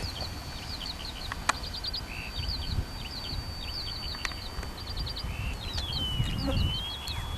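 High, thin whine of a radio-controlled scale-model Po-2 biplane's motor in flight, holding one steady note, then dropping in pitch about five and a half seconds in and levelling off a little higher as the throttle changes. Birds chirp repeatedly, some calls in quick runs of four or five, over low wind rumble on the microphone.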